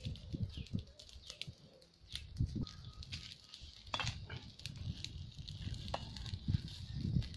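Repeated puffs of breath blown onto smoking dry leaves and straw to get a cooking fire going, with scattered sharp crackles as the kindling catches and burns.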